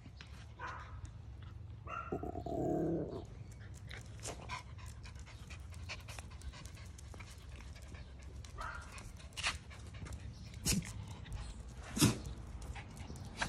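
Miniature schnauzer puppies and dogs at play: panting, with a brief pitched vocal sound from one of them about two seconds in. Scattered light clicks and taps run through, with two sharp knocks near the end.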